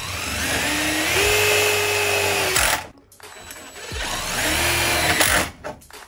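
Electric drill-driver running twice, driving screws into a door lock's latch faceplate: one run of about two and a half seconds and a shorter one near the end. Each time the motor whine rises as it spins up, then holds steady.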